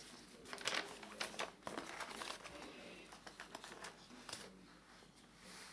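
Faint, intermittent rustling and crinkling of paper bags being handled and pressed flat onto card.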